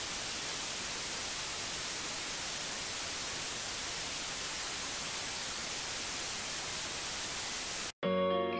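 Steady static hiss, like white noise, that cuts off suddenly about eight seconds in. Guitar music starts right after it.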